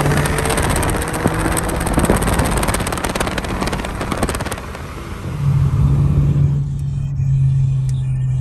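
A car travelling at speed, heard from inside the cabin: loud wind and road rush with crackling wind buffeting on the microphone. About five seconds in, a steady engine drone comes up, and the hiss of the wind soon falls away.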